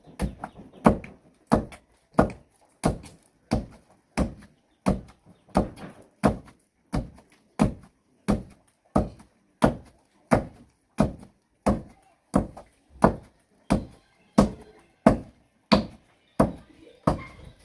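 Palm nuts being pounded with a pestle in a mortar: steady, evenly spaced thuds, about one and a half strokes a second.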